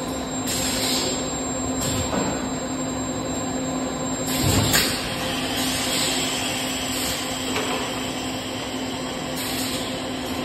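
Toy blow moulding machine running: a steady machine hum with repeated bursts of air hiss, and a sharp thump about four and a half seconds in.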